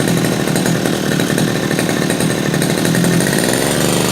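Two-stroke brush cutter engine, its carburetor freshly adjusted, running under throttle with a steady buzz. Its speed changes and settles near the end.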